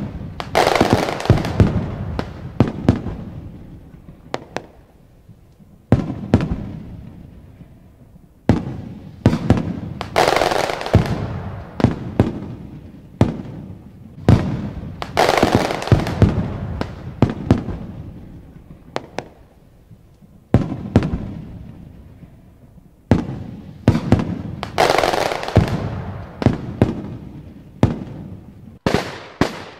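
Aerial firework shells bursting one after another: sharp booms, often several in quick succession, each trailing off in a long echoing decay.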